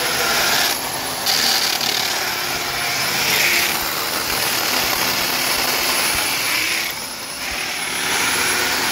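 Corded electric drill boring into a concrete floor through a steel base-plate hole, making holes for expansion anchor bolts. It runs with a harsh grinding and eases off briefly twice, about a second in and near seven seconds.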